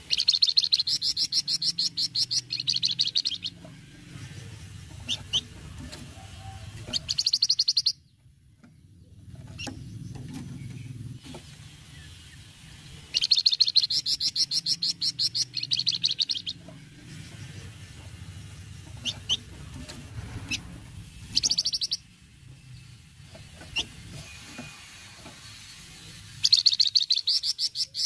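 Flamboyan songbird giving its fast rattling 'cretet' chatter: several bursts of rapid high ticks, each up to about three seconds long, with single sharp chip notes in between, over a low background rumble.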